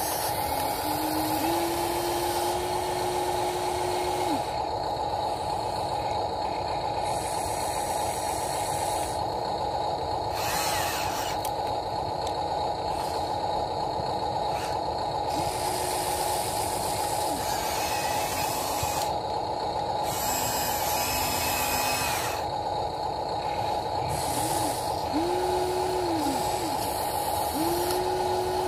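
Electric motors of a Huina RC excavator whining as it works its boom and arm. A lower motor note rises, holds and falls away several times: once near the start, once midway and twice near the end. A steady high whine runs under it throughout.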